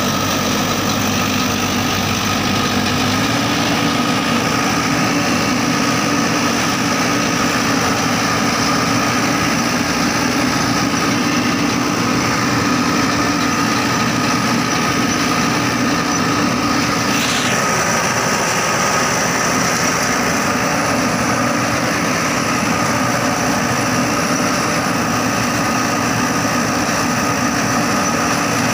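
A Crown MCH PJ-2000 Star combine harvester running steadily as it cuts and threshes corn stalks.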